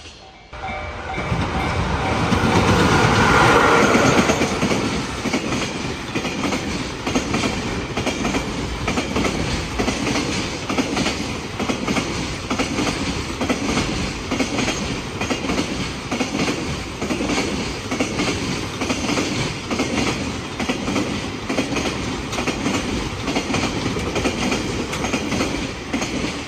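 Freight train passing at speed. The locomotive goes by loudest about two to four seconds in. A long string of wagons follows, their wheels clattering over rail joints in a steady, evenly repeating rhythm.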